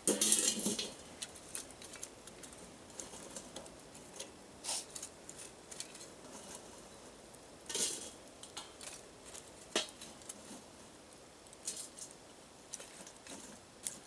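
Hot coals being piled onto and under a metal camp oven: scattered metallic clinks and scrapes, with a loud cluster right at the start and single clinks every second or two after.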